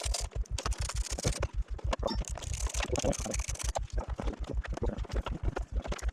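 Hands working at a motorcycle's plastic panels and clips, with scattered clicks, rattles and scraping. Under it runs a steady low pulsing of about seven beats a second.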